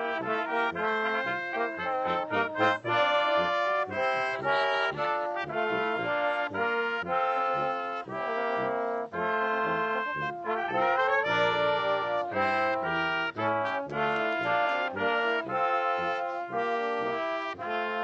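Brass ensemble playing music, with trombones and trumpets.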